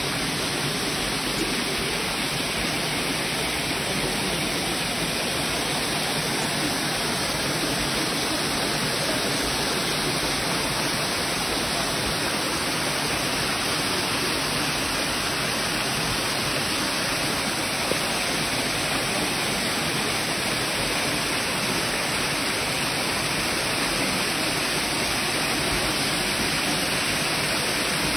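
A waterfall and the rocky stream below it, water pouring and rushing in a steady, unbroken sound.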